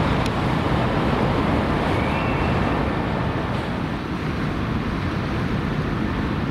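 Steady low rumble and rushing water as the cruise ship Nippon Maru's propellers churn the harbour water alongside the quay while it moves off the berth.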